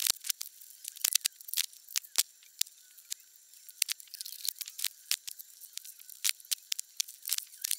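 Irregular clicks, taps and light knocks of camera gear, lenses and a drone controller, being set into the padded divider compartments of a Vanguard Alta Fly 62T camera trolley bag.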